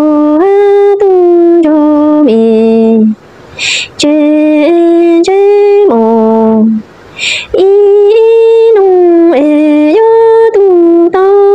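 A woman singing a Hmong lament unaccompanied. She sings in long phrases of held notes that step up and down in pitch, and draws a sharp breath between phrases twice.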